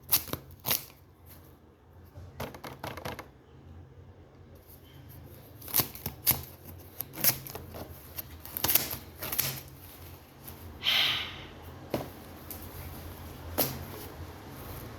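Packaging being handled and unwrapped: irregular crinkling, rustling and small clicks, with a brief louder rustle about eleven seconds in.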